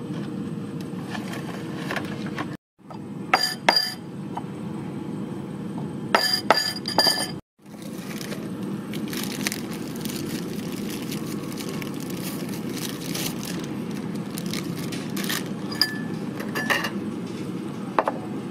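Ceramic bowls and cutlery clinking against each other and the wooden table in two short clusters and a few later single clinks, with plastic bag crinkling in between, over a steady low background noise.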